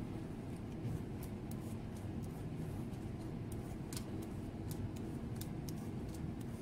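Tarot cards being dealt and laid down one by one on a smooth tabletop: light, irregular card clicks and snaps over a steady low background hum.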